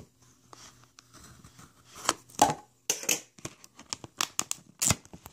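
Security sticker being peeled and torn off the edge of a plastic DVD case, with scratching and a string of sharp clicks from the case, loudest in the second half.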